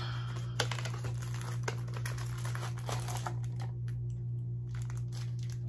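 Small cardboard blind box being opened and a keychain charm in a clear plastic bag pulled out and handled: scattered crinkles and small clicks of plastic and cardboard over a steady low hum.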